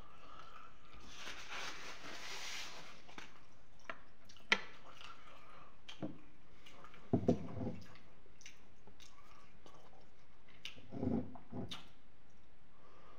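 Close-miked eating sounds: chewing and wet mouth clicks over a faint steady hiss. There are two short low hums, one about halfway through and one near the end.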